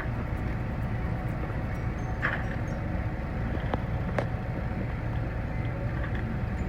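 Construction machine engine running steadily, a low even rumble, with a few short metallic clinks in the middle.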